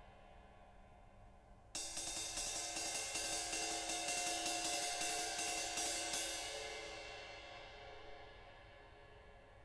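Zildjian 21-inch A Custom 20th anniversary ride, a medium-thin cymbal, played with a stick in a steady pattern of about four strokes a second, starting suddenly after a fading ring; the strokes stop and the cymbal rings out and fades away.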